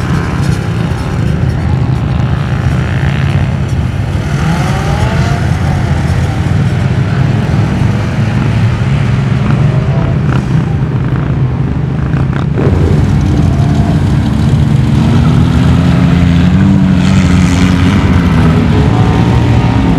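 Off-road vehicle engines running at a dune drag strip: a steady low engine rumble with a brief rising rev about four seconds in, then an engine revving up slowly and growing louder from about thirteen seconds on.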